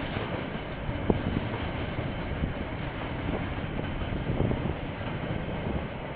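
Container freight train wagons rolling past on the track: a steady rumble with a few sharp clicks from the wheels.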